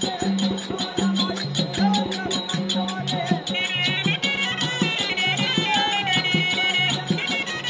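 Therukoothu folk-theatre band playing: a shrill reed pipe carries a melody in held, stepping notes over low held notes, with fast drum strokes and clashing hand cymbals.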